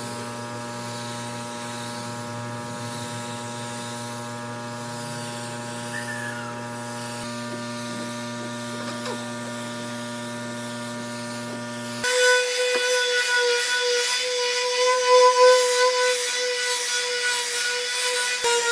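Electric power-tool motors running steadily: a low electric hum, then about twelve seconds in an abrupt switch to a louder, higher-pitched motor whine.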